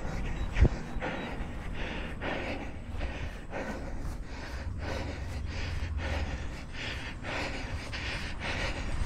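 A runner panting hard, with quick, rhythmic breaths about twice a second over a low rumble, and a single thump just over half a second in.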